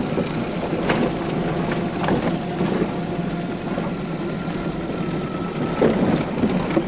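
A car driving slowly over a rough, potholed gravel road, heard from inside the cabin: steady engine and tyre-on-gravel noise with a few short knocks and rattles as it jolts over the stones.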